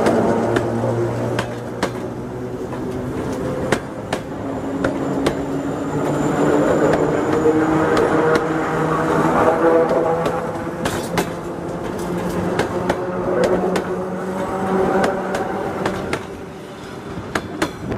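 ER2 electric multiple unit rolling past at close range. Its wheels clatter over the rail joints in irregular clicks, and steady humming tones run under the rumble. The sound drops off near the end as the last car goes by.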